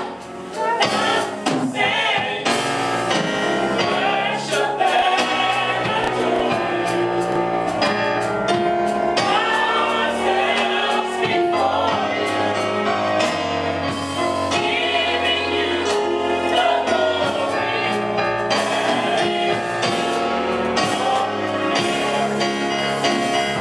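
Gospel praise and worship team singing with band accompaniment, a choir of voices over instruments with a steady beat.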